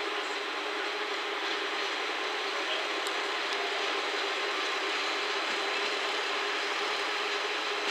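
Two-car KiHa 47 diesel railcar set (JR West KiHa 40 series) rolling past at low speed: a steady mix of diesel engine hum and wheels on rail, with a steady low tone running through it.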